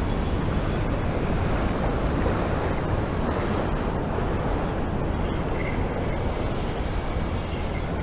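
Ocean surf washing with wind blowing across the microphone: a steady rush of noise.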